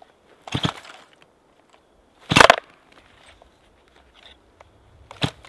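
Starter cord of a Stihl MS 260 chainsaw being pulled three times, each pull a short rasping burst, the second the loudest. The engine does not catch and run between pulls.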